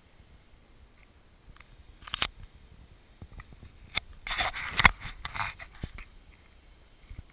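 Irregular scraping and clicking knocks close to the microphone: a short cluster about two seconds in, then a longer rough, crackly burst from about four to six seconds in, with a few single clicks after.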